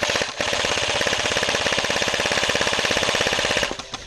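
Airsoft gun firing one long full-auto burst, a fast even rattle of shots that starts just after the beginning and stops about three and a half seconds in.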